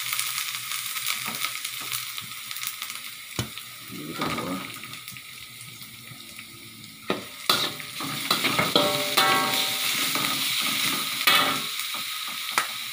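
Spice paste sizzling in hot oil in a metal wok, with a metal spatula stirring and now and then scraping and knocking against the pan. The sizzle gets louder about halfway through, as spicy sweet soy sauce goes into the hot oil.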